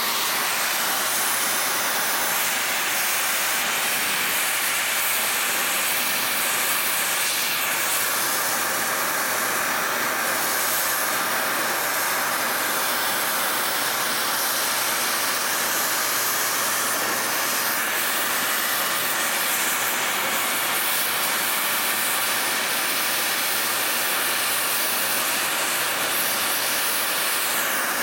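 Oxy-acetylene cutting torch hissing steadily as its cutting jet burns through the race of a seized ball bearing on an electric motor shaft.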